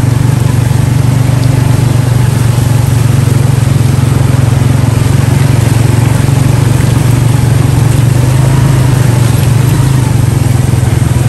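Motorcycle engine running at a steady speed, heard close up from the moving bike, over a constant rushing noise of wind and water as it rides through a flooded street.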